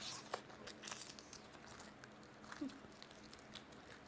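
Faint eating sounds from biting into a fried chicken leg: a few short crunches and the tearing of meat off the bone, mostly in the first second, then quiet chewing.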